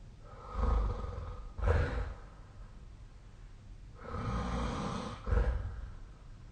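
A sleeping person snoring through two breaths, each a longer stretch of snoring followed by a short, louder burst.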